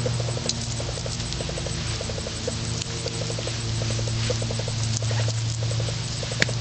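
Metal chain whip being swung and handled, giving light metallic clinks and one sharp clink near the end. Under it is a steady low hum with bursts of rapid ticking.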